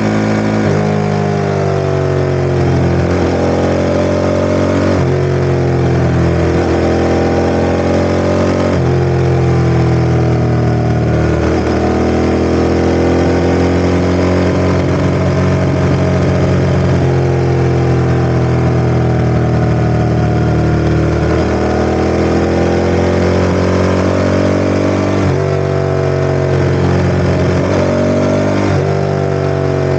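Ducati ST4S motorcycle's L-twin engine running, its pitch rising and falling slowly with several abrupt steps up and down.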